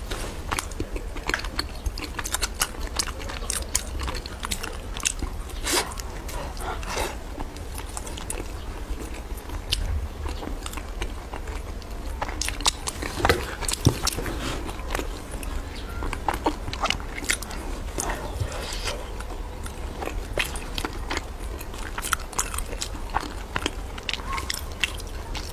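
Close-miked chewing and mouth sounds of a person eating soft, chewy mochi filled with red bean paste, with irregular smacks and clicks throughout.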